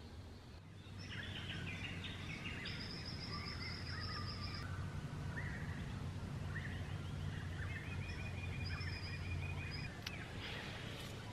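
Dawn chorus: several birds calling and trilling over one another, starting about a second in, over a low steady hum.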